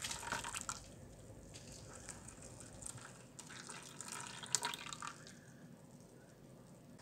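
Water trickling and splashing in a dishwasher's sump as it drains past the drain impeller, freed of debris after being turned by hand. It comes in two spells, near the start and again about halfway through.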